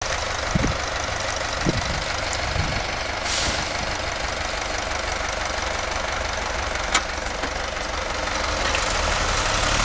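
Diesel engines of a LIAZ Š706 tipper truck and a hitched tractor running steadily, with a few short sharp knocks. The noise grows slightly louder near the end.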